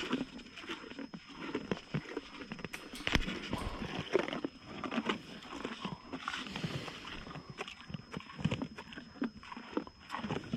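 Farm animals eating corn close by, with irregular chewing, crunching and short animal noises.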